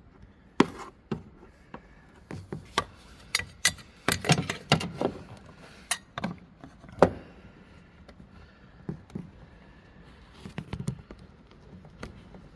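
Irregular clicks, taps and knocks of car parts being handled and pressed into place by hand, busiest in the first half.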